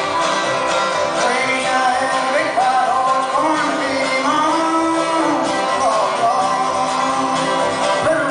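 Banjo played clawhammer style, a steady old-time frailing rhythm, with a man's voice singing along over it.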